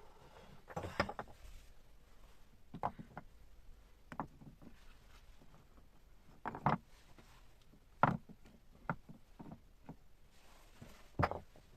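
Scattered short knocks and clunks of things being handled, about eight at irregular intervals, over a faint steady background.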